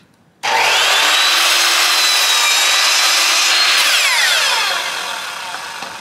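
Electric miter saw switched on with a sudden loud whine about half a second in, cutting through a wooden board, then released and spinning down with a falling whine near the end.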